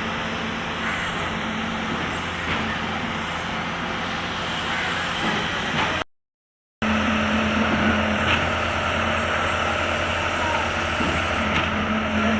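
Concrete mixer and concrete pump machine running steadily, a constant engine hum under a dense mechanical clatter. About six seconds in, the sound cuts out completely for under a second, then resumes with the hum slightly stronger.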